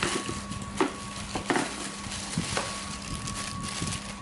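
Handling noise as a cordless drill is taken out of its packaging: a few sharp clicks and knocks, irregularly spaced.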